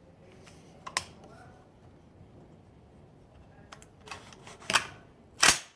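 A few sharp mechanical clicks and clacks: one about a second in, a couple more near the end, then a louder, slightly longer clack just before the sound cuts off.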